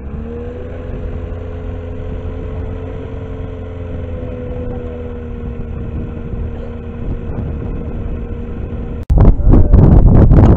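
Light aircraft's piston engine and propeller running at a steady speed, the pitch rising briefly at first and then holding as an even drone. About nine seconds in it cuts to loud wind buffeting the microphone.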